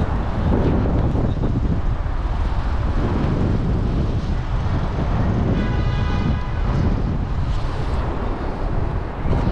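Wind rumbling on the microphone over street traffic noise, with a brief high-pitched tone lasting about a second a little past the middle.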